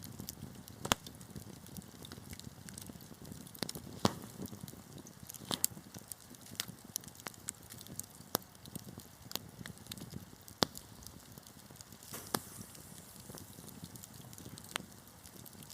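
Wood fire burning in a fireplace, with a low steady rush of flames and irregular sharp crackles and pops, a few loud pops standing out.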